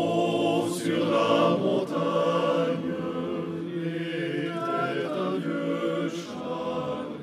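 Swiss men's yodel choir singing a cappella in long held chords, the chord changing about once a second.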